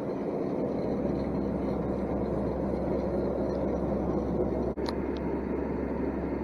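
Grain mill running steadily while milling grain, a dense, even machine noise, broken by a very brief dropout about three-quarters of the way through.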